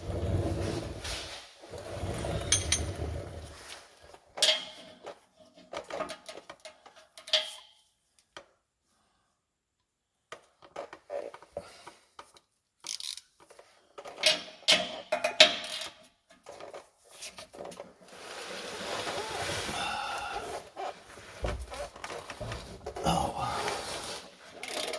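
Metal hand tools clinking and scraping on the rusty bolts of a car's exhaust flange, in irregular knocks and scrapes, with a couple of seconds of silence about a third of the way in.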